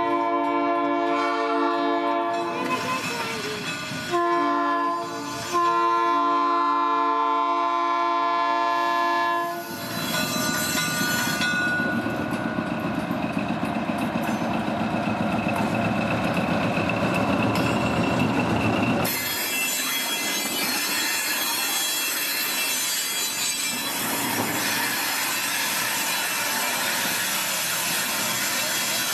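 Diesel switcher locomotive No. 1256 sounds its multi-note horn in several blasts, the last held for about four seconds. The horn then stops and the locomotive rolls along with its diesel engine running and its wheels on the rails, with a brief squeal about eleven seconds in. About nineteen seconds in the sound changes abruptly to a steadier engine running.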